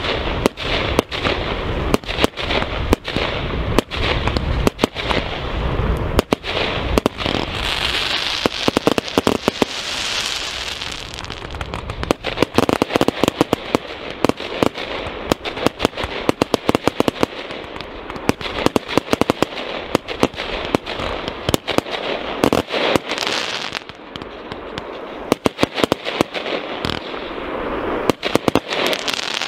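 Fireworks display: a rapid, continuous barrage of bangs and crackling. About eight to eleven seconds in comes a stretch of denser, hissing crackle, and the barrage stops abruptly at the end.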